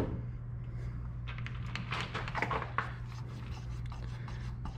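Steel parts on a metal lathe handled by hand: light scraping and clicking of metal on metal, mostly between about one and three seconds in, over a steady low hum.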